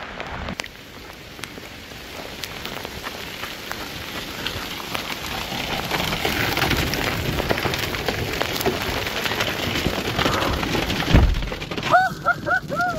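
Heavy rain and hail pelting down: a dense downpour hiss full of sharp hailstone hits, growing louder over the first several seconds. Near the end it is heard from inside a car, with a few short tones.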